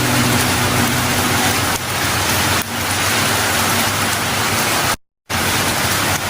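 Heavy rain falling steadily, a dense hiss. The sound cuts out completely for a split second about five seconds in.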